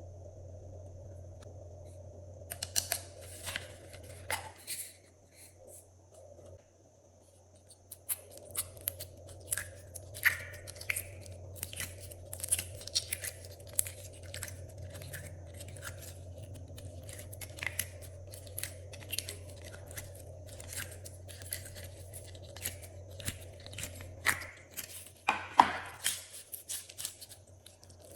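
Glossy slime being worked by hand, giving irregular sharp crackles, pops and snaps in quick succession, with a short lull a few seconds in.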